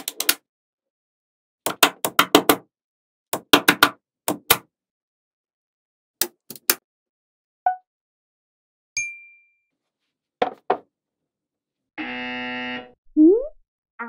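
Small magnetic balls clicking and snapping together in quick clusters of sharp clicks as strips of balls are pressed onto a wall. Near the end, an added buzzing sound effect lasting under a second, then a short rising whistle-like glide.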